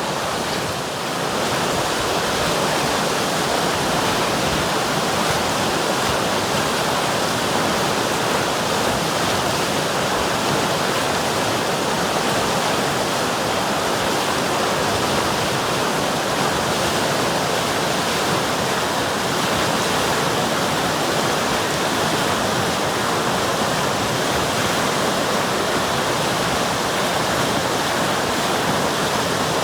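River water rushing steadily, a dense, even noise of flowing and splashing water.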